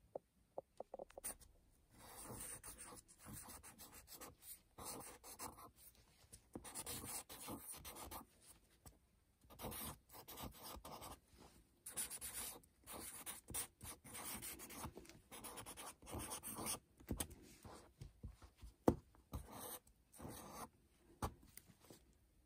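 Felt-tip marker writing on a paper card: a run of short scratching strokes with brief pauses between letters, after a few light clicks in the first second or so.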